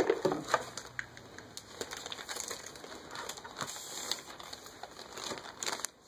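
Clear plastic packaging bag crinkling and rustling in the hands, in many small irregular crackles, after a sharp knock right at the start.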